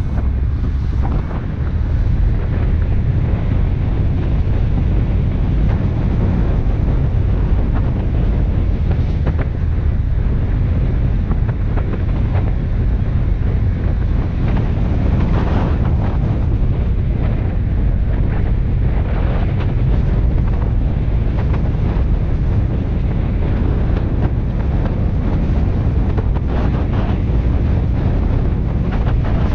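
Wind buffeting the microphone of a camera mounted outside a moving car: a loud, steady, low rumbling noise.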